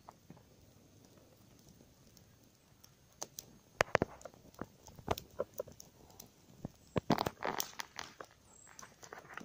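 Small campfire of dry sticks crackling, with scattered sharp pops starting about three seconds in. About seven seconds in comes a denser burst of crunching and rustling in dry leaf litter.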